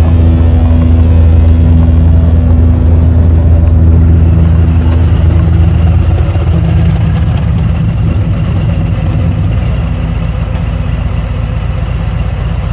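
Motorcycle engine running at a steady low note, easing off gradually in the second half.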